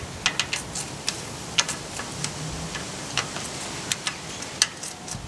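Irregular sharp metallic clicks and taps, about three a second, from hand tools working at a Landcruiser's floating rear axle hub.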